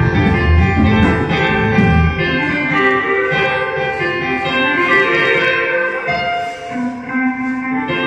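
Electric bass guitar and keyboard playing together, the bass notes heavy and low for the first couple of seconds, then held organ-like keyboard chords carry on with the bass lighter underneath.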